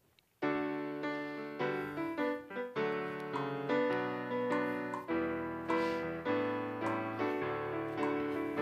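Piano-voiced keyboard playing chords and a melody in a steady pulse, starting about half a second in.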